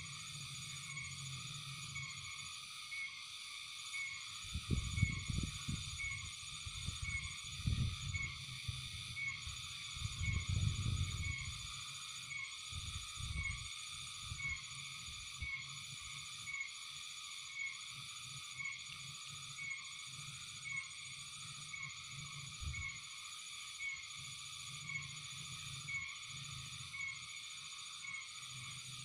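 Steady outdoor chorus of frogs and insects, with a chirp repeating about once a second over a continuous high trill. From about four seconds in, low rumbles on the microphone for roughly ten seconds, and a single low thump later on.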